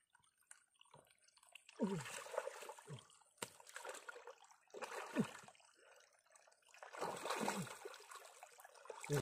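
Hands groping through shallow muddy pond water and mud while feeling for fish, sloshing and splashing in about four irregular bursts with short gurgles.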